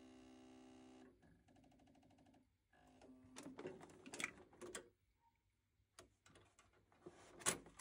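Faint steady hum with a short rapid buzzing, then scattered plastic clicks and knocks as a boiler's plastic control panel is swung up and clipped into place, with a sharper click near the end.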